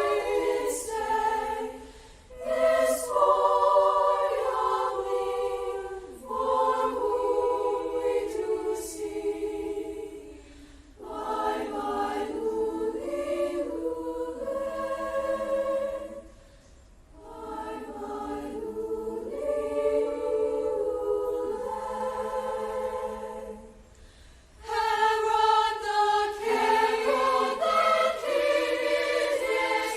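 A choir singing in several parts, in phrases a few seconds long with short breaks between them.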